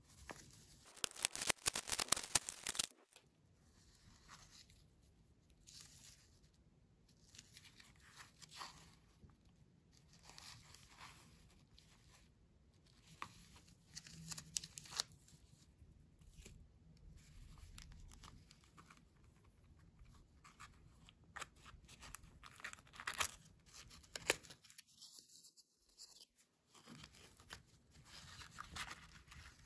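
Cellophane wrap crinkling and tearing off a small cardboard toy box, loudest and densest about a second in, followed by quieter scattered crackles and clicks as the thin cardboard box is handled and its flap opened.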